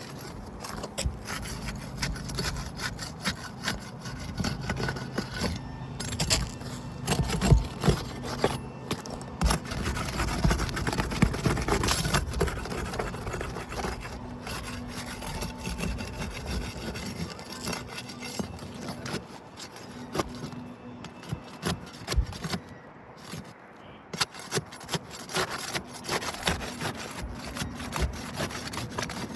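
A hand tool scraping and rubbing as it is worked under roof shingles to break them loose, with many scattered clicks and knocks.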